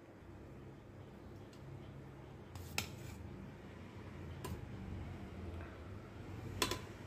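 A metal spatula stirring and fluffing cooked rice in a pressure cooker pot, with three sharp clinks of the spatula against the pot, about three seconds in, four and a half seconds in and near the end.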